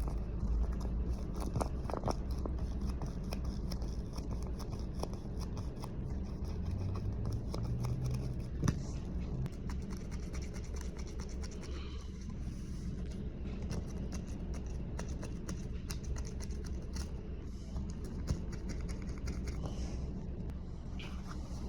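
Close handling noise: scraping and scratching with scattered small clicks over a steady low hum, and one sharper click about nine seconds in.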